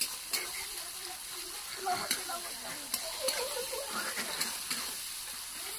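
Sliced onions sizzling in hot oil in a metal kadai, stirred with a flat steel spatula that scrapes and clicks against the pan now and then.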